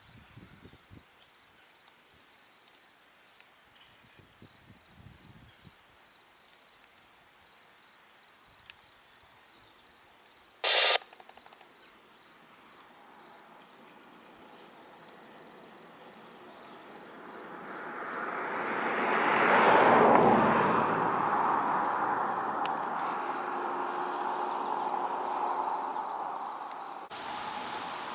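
A steady, pulsing chorus of insects, with a short loud blip about a third of the way in. A vehicle then passes, swelling to its loudest about two-thirds through and fading away.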